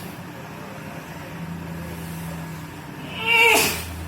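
A man's loud, throaty retch about three seconds in, falling in pitch as he heaves through the mouth, the expulsion the ruqyah healer has been calling for.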